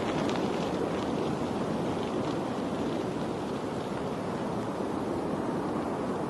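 Steady rushing of moving water at an even level, with faint splashy ticks in the first second or so.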